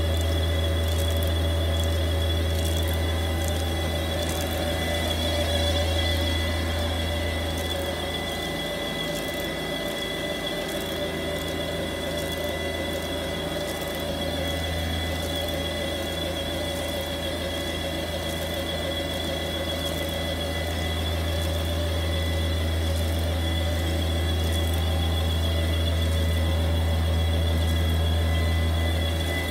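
A 1994 Toyo crystal pleating machine running steadily as fabric feeds through its rollers: a constant low hum with a thin high whine over it, easing slightly in the middle before rising again.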